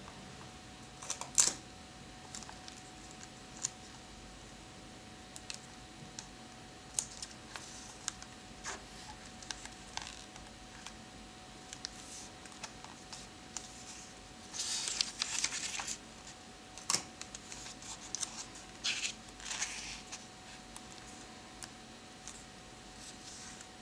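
Fingertips tapping and rubbing on the paper pages of a notebook and on a photo print mounted in it: scattered light taps, with a brushing rub about two-thirds of the way through and another a few seconds later.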